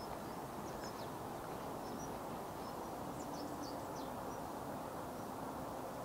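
Steady outdoor background noise with faint, scattered high chirps of small birds.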